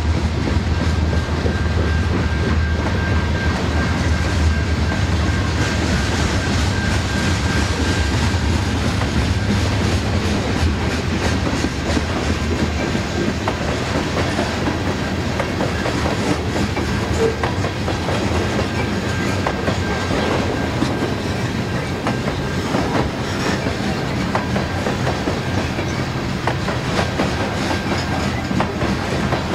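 A freight train of covered hopper cars rolling past, its wheels clicking again and again over the rail joints above a continuous rumble.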